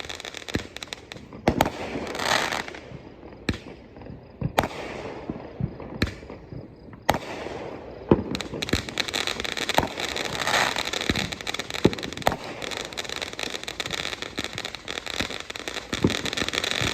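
Consumer fireworks going off: a string of sharp bangs and pops over crackling, with the crackle growing dense and continuous through the second half.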